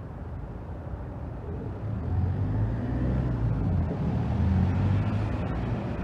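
Street traffic noise, a low rumble of passing vehicles, growing louder about two seconds in.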